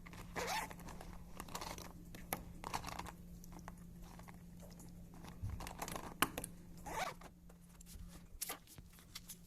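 Small handling noises: scattered short rustles, scrapes and clicks, over a faint steady hum.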